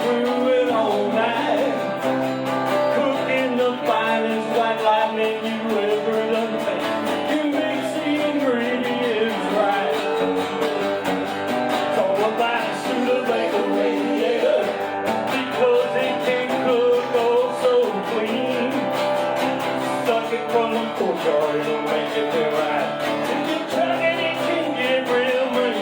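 Live country song: acoustic guitar strummed under a male voice singing the verse and chorus.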